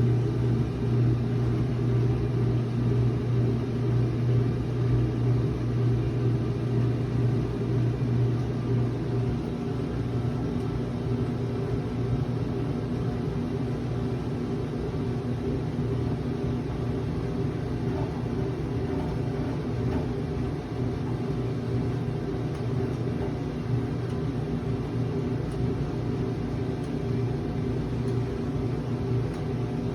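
1985 Maytag LA 211 washing machine running: a steady motor hum under a churning rumble, pulsing in level for roughly the first nine seconds and then steadier.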